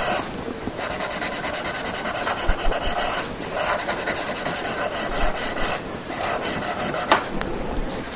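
Graphite pencil scratching across drawing paper in quick shading strokes, a rasp that swells and fades with each stroke. One sharp click near the end.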